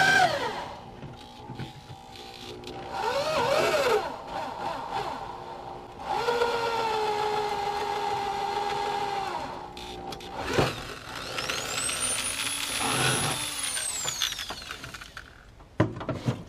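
Power drill spinning up and back down in short trigger pulls, with one steady run of about three seconds, used to drill the aluminum angle for rivets; a sharp click about ten and a half seconds in, then a quick high rev that rises and falls.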